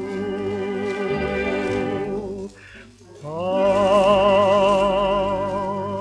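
A romance sung in operatic style with orchestra. A held vibrato note runs until a short break about two and a half seconds in. Then a note glides up into a long, loud held tone with wide vibrato.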